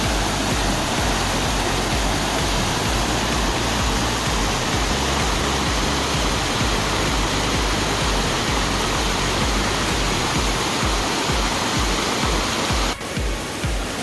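Waterfall rushing: a loud, steady wash of falling water, with background music underneath. The water sound dips briefly near the end, then resumes.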